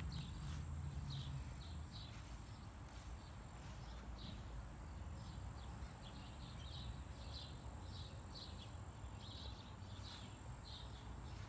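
Short high chirps from a small animal, repeating about once a second, over a faint low rumble.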